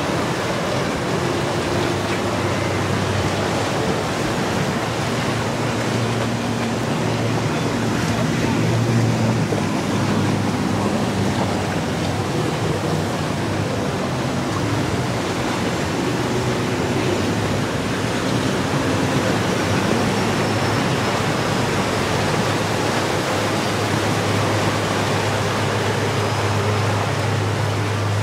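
Powerboat engines droning as boats run at speed through choppy water, over a steady wash of waves and wake spray. The low engine drone grows stronger near the end.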